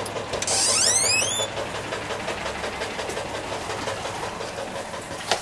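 A uPVC patio door being opened: a short rush of noise with a rising squeak lasting about a second, over a steady low hum.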